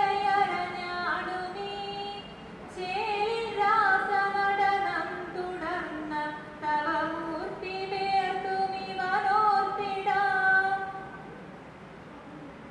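A woman chanting a verse to a slow melody, unaccompanied, through a microphone and hall loudspeakers. She holds long notes with gliding ornaments and stops about eleven seconds in.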